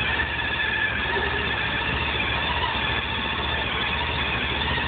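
Honda ST1300 motorcycle's V4 engine idling steadily, with a constant higher hum running alongside it.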